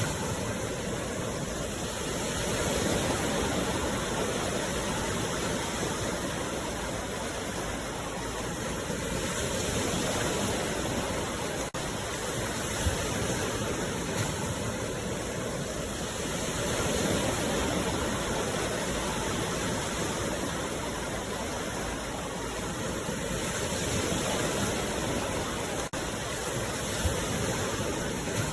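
Sea waves breaking and washing ashore: a steady rushing surf that swells and eases, cresting about every seven seconds.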